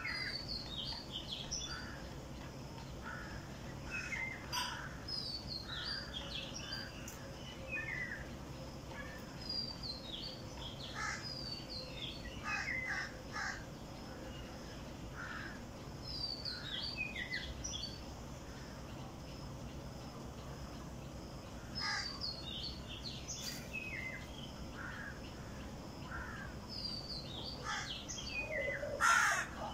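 Birds calling in trees: a phrase of quick, falling high notes repeats every few seconds among scattered lower calls, and one loud, harsh call comes near the end.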